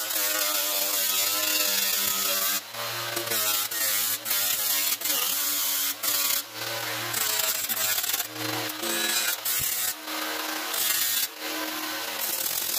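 Handheld electric angle grinder with a round disc stripping rust from the steel body panels. It runs with a high scraping hiss over a motor whine that shifts as the disc is pressed on, and it drops off briefly every second or two as the disc is lifted and moved along the metal.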